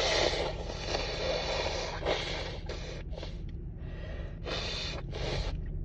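A woman blowing her nose, congested from allergy sneezing: one long blow of about two seconds, then several shorter blows.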